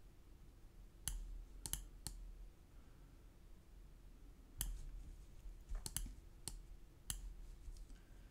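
Computer mouse buttons clicking: about ten sharp, irregular clicks, some in quick pairs, over a faint steady hum.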